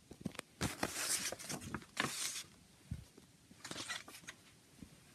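Paper CD booklet being unfolded and folded by hand: crisp paper rustling and crackling with small clicks, in a spell of about two seconds and a shorter one near the end.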